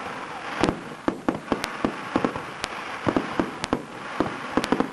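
Aerial fireworks going off in quick, irregular succession: sharp bangs several times a second over a continuous hiss.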